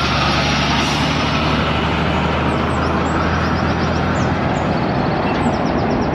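Multi-trailer road train driving past close by: its diesel engine runs with a steady low drone under loud tyre and road noise as the trailers roll past.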